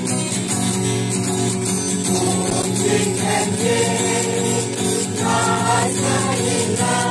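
A mixed group of women and children singing a song together in chorus, accompanied by a guitar.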